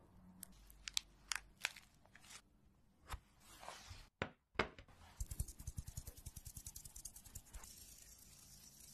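Plastic piping bag and gloves crinkling, with a few crisp clicks, as cheesecake batter is squeezed into a glass cup. Then a quick run of soft, even taps, about six a second, from a small metal sieve being tapped to dust strawberry powder over the cups.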